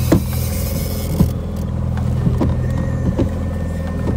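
Mercury outboard motor running steadily at trolling speed, a low even drone. Several sharp knocks sound over it, the loudest near the start and about a second in, with a brief rush of hiss in the first second.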